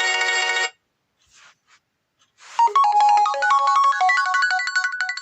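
HTC One M8 ringtones: a sustained, many-toned chime cuts off under a second in, and after a short pause a new ringtone starts about two and a half seconds in as a quick melody of short, bright notes stepping up and down.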